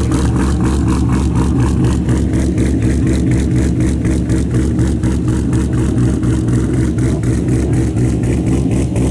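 Corvette V8 idling through its exhaust, a steady, evenly pulsing note.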